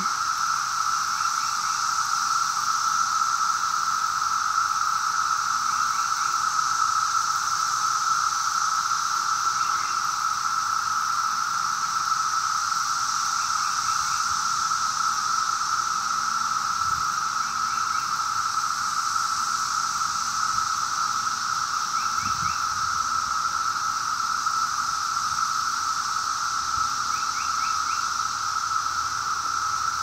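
Chorus of 17-year periodical cicadas: a steady, unbroken drone of countless insects singing together, without rising or falling.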